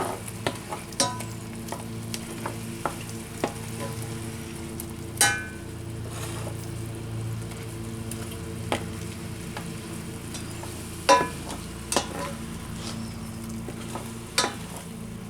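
Shrimp sizzling in a frying pan of garlic and lemon sauce while being stirred, a metal utensil clinking against the pan about seven times, loudest about 5 and 11 seconds in.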